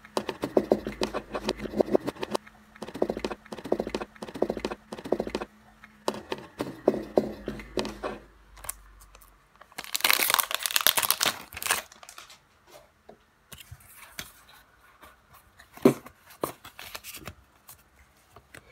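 Foil Pokémon booster pack crinkling in the hands, then the wrapper torn open about ten seconds in, a bright tearing rush that is the loudest sound here. Quieter rustling of the cards and wrapper follows, with a single click near the end.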